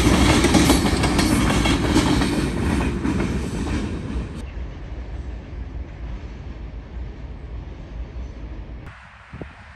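Freight train's covered hopper cars rolling past, the wheels clattering over the rail joints; about four seconds in the noise fades away as the end of the train passes and it draws off.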